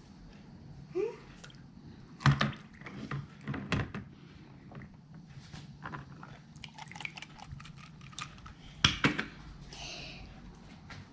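Plastic toys being handled and knocked together: scattered clicks and clacks, with louder knocks about two seconds in, near four seconds, and near nine seconds.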